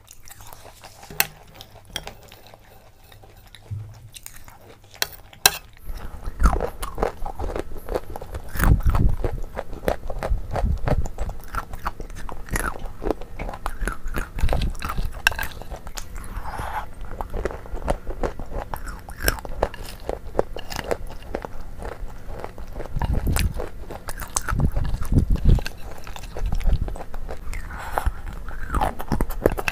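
Close-miked chewing and crunching of a creamy dessert with crunchy seeds in it. It is soft and sparse for the first few seconds, then steady crunching from about six seconds in.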